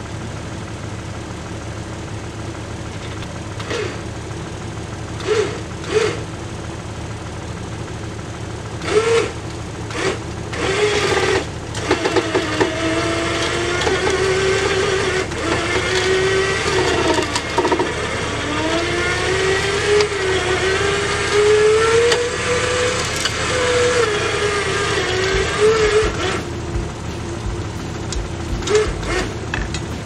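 Woodland Mills portable band sawmill's gasoline engine running steadily, with several sharp knocks in the first dozen seconds. From about 12 to 26 seconds a louder, wavering tone rises and falls over the engine, then drops back to the steady running.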